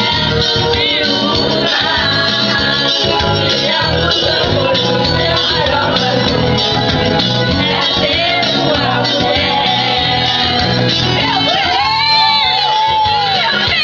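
A song with a singing voice over full instrumental backing, ending in a long, wavering held sung note.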